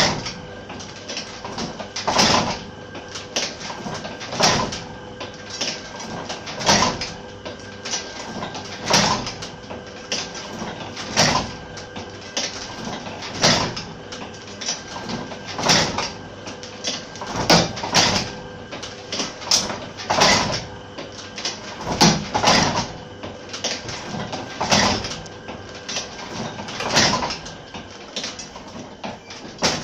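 Old platen letterpress machine running at a steady pace: a loud clank about every two and a quarter seconds as it makes each impression on a sweet box, with lighter clicks and rattles between and a faint steady hum underneath.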